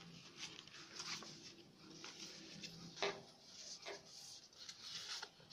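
Sheets of thin green craft paper being handled on a tabletop: faint rustling as a folded pair is separated and pressed flat, with a sharper tap about three seconds in.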